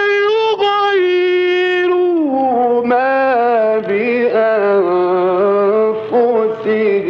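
A man's voice in slow, melodic mujawwad Quran recitation: long held notes that step down in pitch about two seconds in, then wavering, ornamented phrases.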